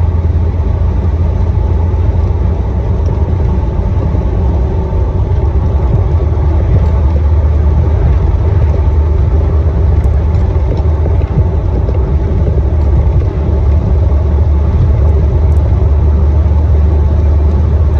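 A Jeep driving at a steady speed, heard from inside: a loud, steady low rumble from the engine, tyres and wind.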